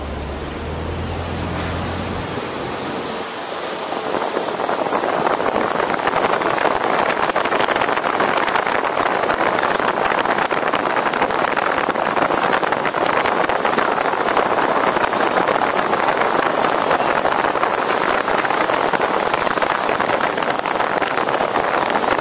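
Wind rushing over the microphone of a roof-mounted action camera on a moving car. It starts with a low hum and swells after about three seconds into a loud, steady rush as the car picks up speed.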